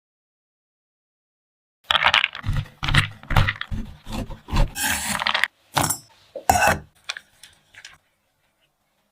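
Kitchen handling noises from cake preparation: a run of irregular knocks and scrapes starting about two seconds in, thinning out near the end.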